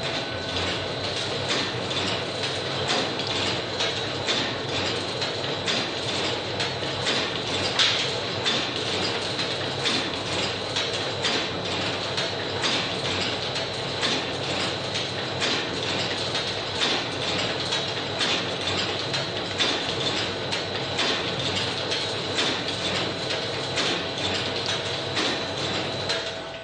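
Brehmer semi-automatic book-block sewing machine running, a steady rhythmic mechanical clatter of its sewing cycle over a thin steady whine. It stops at the very end.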